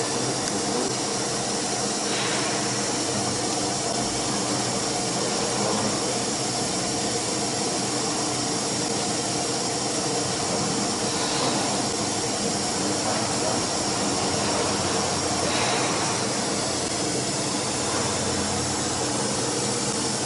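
CNC wood router running its automatic tool-length measurement: a steady mechanical hum of its motors and drives, holding several even tones, with a few faint short hisses.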